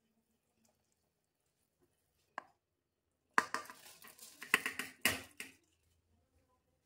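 Soaked rice scraped off a steel plate with a spoon into a pressure cooker of dal: a single metal tap, then about two seconds of clinking and scraping of metal on metal.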